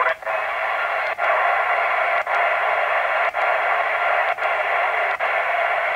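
Retevis MB1 CB radio hissing with band static on AM through its speaker, the hiss cutting out briefly about once a second as the channel is stepped from one to the next.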